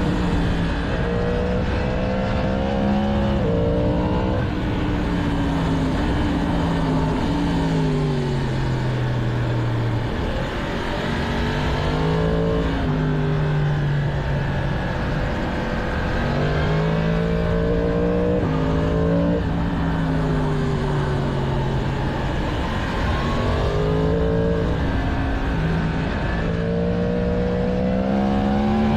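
Stock-exhaust 2022 Yamaha MT-10's crossplane inline-four under way: the engine note climbs in short steps through several upshifts, then falls away in long glides as the throttle is closed, and this happens several times over.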